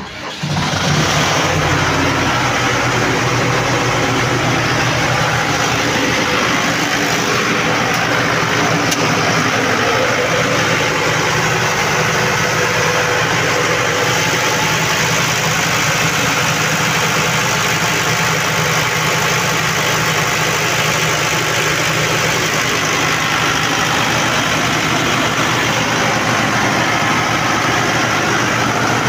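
Standby generator set's engine running steadily and loudly, a constant drone with a hiss over it. It gets suddenly louder right at the start as the door to its room opens.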